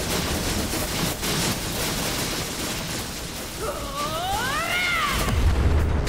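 Sound effects for an advancing army of spider-legged robots: a dense, noisy din. About two-thirds of the way in comes a screeching cry that rises and then falls, and a deep boom follows near the end.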